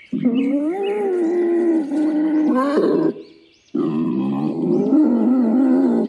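Two long, loud, drawn-out animal calls of about three seconds each, with a short break between them.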